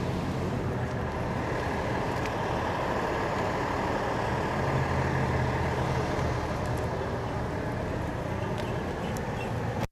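Engines of a line of utility bucket trucks running at idle: a steady low rumble that swells slightly midway and cuts off abruptly at the end.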